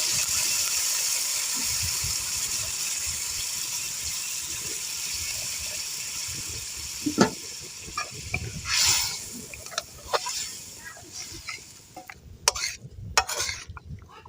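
Goat intestine sizzling in a hot cooking pot, the hiss slowly dying down over about twelve seconds, with scattered clinks of a utensil against the pot in the second half.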